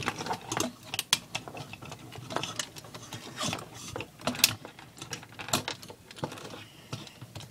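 Plastic joints and parts of a Transformers Dark of the Moon Bumblebee action figure clicking and snapping as it is transformed by hand, a run of short, irregular clicks.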